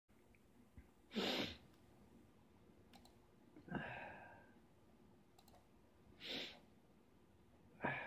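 A person breathing close to the microphone: three short, breathy exhales about one, four and six seconds in, over faint room tone.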